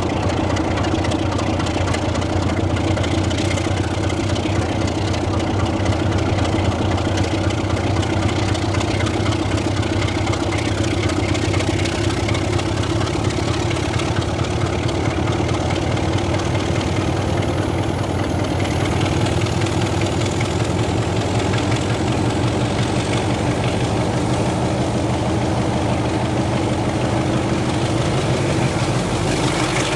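Diesel locomotive engine of a Class 33 and Class 69 pair (33012 and 69005) running steadily, heard from aboard the train it is hauling.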